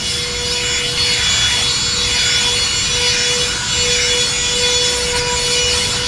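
Handheld cordless vacuum cleaner running with a steady high whine, its nozzle rubbing and sucking along a nylon tent floor in repeated strokes that swell and fade about once a second.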